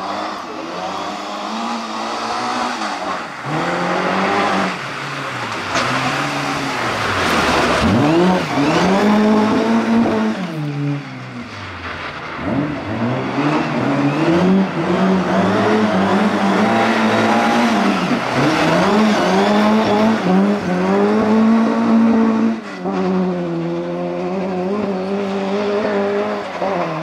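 Classic rally car engine revving hard and shifting through the gears, its pitch climbing and then dropping at each change, over and over, with some tyre squeal.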